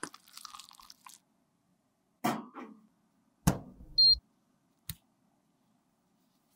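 Close-up crunching and crackling of makeup being crushed for about a second, then two knocks from handling, a short high beep about four seconds in, and a single click.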